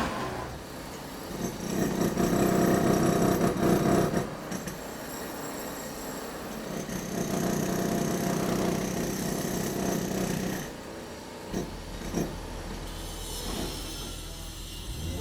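Demolition hammers breaking concrete in long bursts of rapid hammering, one run about a second and a half in and another from about seven seconds. Between and after the bursts are quieter construction-site sounds with a low hum and a few knocks.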